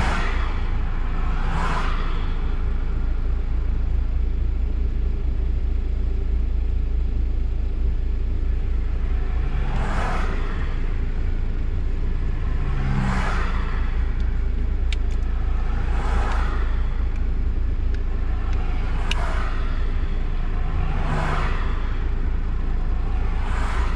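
Road traffic: vehicles passing one at a time, about seven in all, each a swelling and fading whoosh of tyre and engine noise, with a gap of several seconds after the first. Under them runs a steady low rumble.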